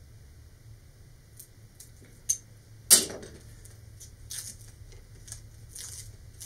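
A paper pattern being peeled and torn off a heavy-cardboard centering ring, in short scratchy rips and clicks, the loudest a sharp tear about three seconds in.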